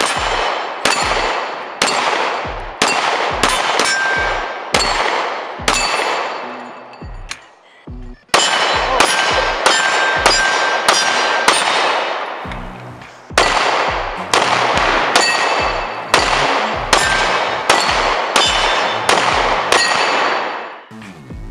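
Electronic music with a steady beat and loud, ringing hits, with a short break about eight seconds in.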